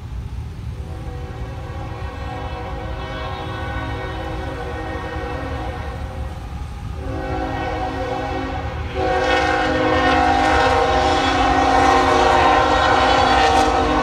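Union Pacific GE GEVO locomotive's air horn sounding for a grade crossing as the train approaches: long chord blasts with a short break about seven seconds in, then much louder from about nine seconds in.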